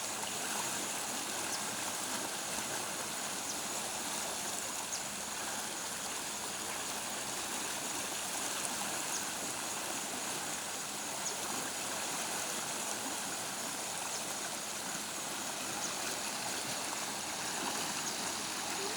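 Rushing water of a stream swollen by heavy rain: a steady, unbroken rush.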